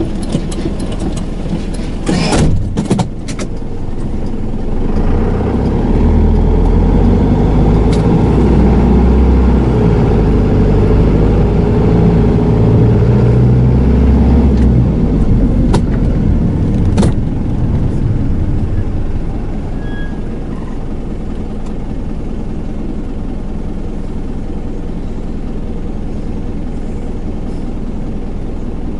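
Hino Liesse II minibus's diesel engine heard from inside the cabin, pulling away and accelerating through its automatic gearbox, then settling to a quieter steady run. A few sharp knocks sound about two seconds in.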